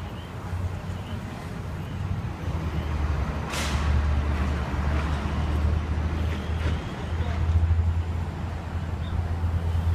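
Ambulance diesel engine idling with a steady low rumble. A brief hiss about three and a half seconds in.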